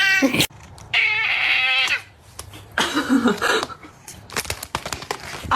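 Domestic cat meowing in three drawn-out, wavering calls of about a second each, followed near the end by a quick run of sharp clicks or taps.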